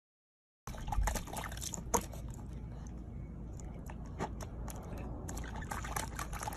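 Water splashing and sloshing in a small plastic tub as a corgi puppy dips its face and front paws in it: a quick run of small splashes and drips over a steady low rumble. The sound starts abruptly about half a second in.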